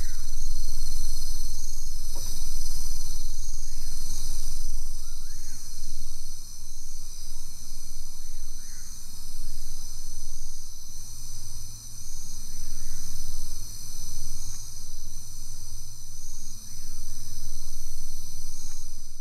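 Insect chorus: a steady high-pitched trilling over a low rumble that swells and falls, with a few faint short chirps now and then.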